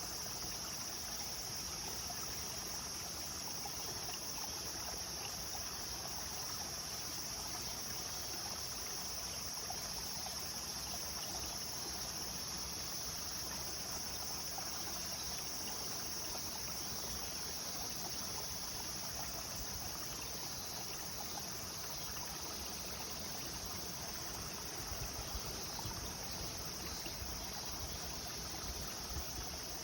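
Clear stream flowing in a steady rush, with a constant high-pitched drone of insects over it. A few soft low bumps come in near the end.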